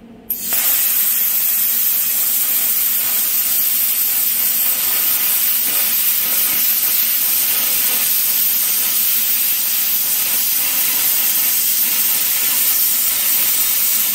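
Lotos LTP8000 air plasma cutter cutting steel plate at 30 amps: a loud, steady hiss of the plasma arc. It starts abruptly just after the start and stops suddenly at the end.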